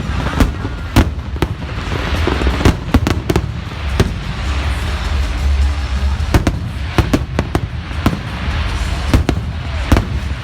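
Fireworks display: an irregular string of sharp bangs, at times several a second, over a continuous low rumble.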